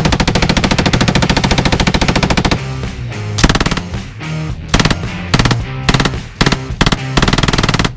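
Belt-fed machine guns firing: one long continuous burst of about two and a half seconds, then, from a German MG42-type gun, a string of about six short rapid bursts. Background music plays underneath.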